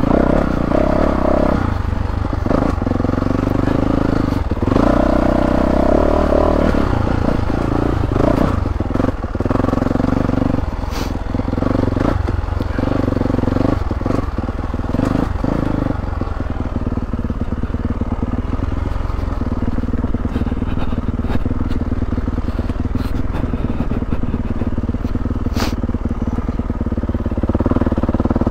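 2022 Yamaha YZ450F's 450 cc single-cylinder four-stroke engine running under a trail rider's throttle, the revs rising and falling often in the first half and holding steadier and lower from about halfway. The bike's chassis clatters and knocks over the rough dirt trail.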